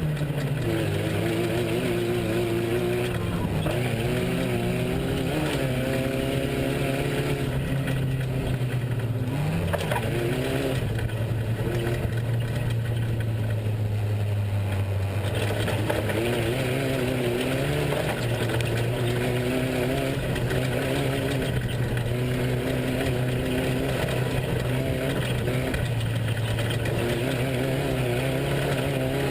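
Off-road race truck engine running hard, its pitch climbing and dropping again and again as the throttle and gears change.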